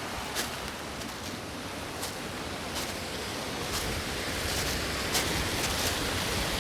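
Steady rushing hiss of a creek pouring over small tiered cascades, with a few faint clicks scattered through it. A low wind rumble on the microphone builds in the second half.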